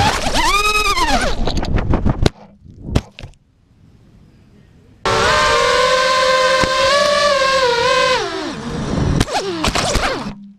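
Whine of a 5-inch FPV racing quadcopter's Emax RS2205 brushless motors and propellers, swinging up and down in pitch, then knocks as it crashes and the motors stop about 2 s in. About 5 s in the whine starts abruptly again and holds steady, then falls away with knocks and a brief sweep in pitch as the quad crashes into grass and its motors cut off near the end.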